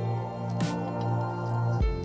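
Background music with steady held notes, changing with a soft hit about half a second in and again near the end.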